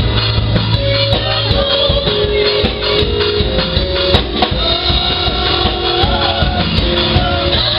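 Band music with a drum kit and bass under held chords that change every half second or so.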